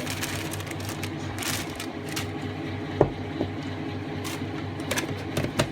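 Dry yellow cake mix being poured and tapped out into a plastic cooker base, a faint rustle with a few sharp taps about three and five seconds in, over a steady low hum.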